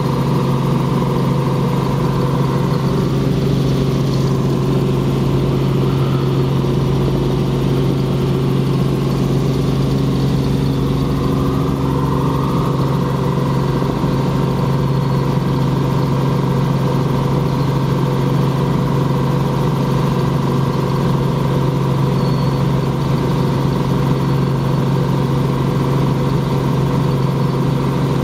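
Robinson helicopter's engine and rotors heard inside the cabin in steady forward flight: a loud, unbroken drone over a constant low hum.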